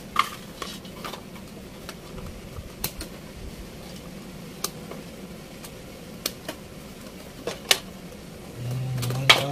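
Small clicks and taps of a refrigerator control circuit board and its plastic wire connectors being handled and plugged in. Near the end a low steady hum sounds for about a second.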